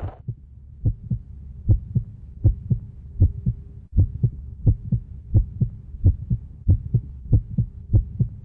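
Low heartbeat-like thumps in the soundtrack, paired beats repeating about every three-quarters of a second over a faint steady hum.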